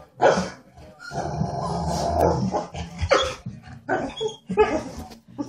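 Pit bull growling in play, one long rough growl of about a second and a half, with short barks before and after it.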